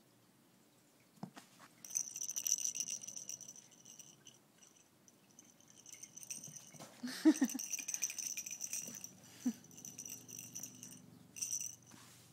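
Puppy's rattle toy rattling in bouts as it is shaken and tossed about: a burst about two seconds in, a longer one from about seven to nine and a half seconds, and a short one near the end.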